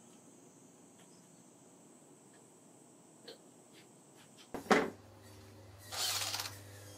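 Faint light clicks of a metal concealed cup hinge being seated in and lifted out of its bored cup hole in a wooden door. About four and a half seconds in comes a sharp knock, and a second later a brief scraping rustle.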